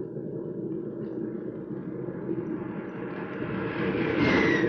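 Radio-drama sound effect of aircraft in flight: a steady rushing engine drone that swells louder toward the end, where a falling whistle begins.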